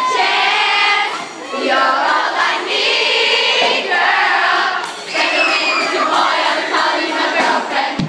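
A concert crowd of young fans singing along in high massed voices over live pop music, loud and close to the microphone.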